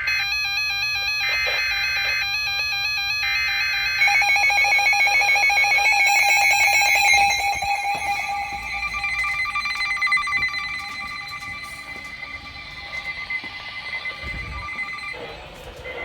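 Emergency weather alert signal: screeching digital header bursts broken by two short pauses over a steady tone. About four seconds in, a louder warbling alarm tone takes over and fades over the last several seconds.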